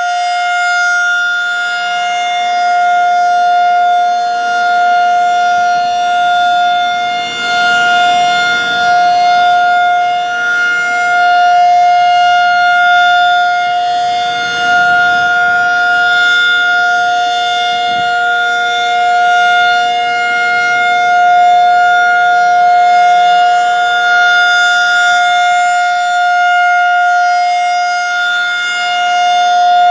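Federal Signal 2001-SRN electromechanical tornado siren sounding its steady Full Alert tone, the pitch held constant while the loudness swells and fades gently every few seconds as the rotating head sweeps past.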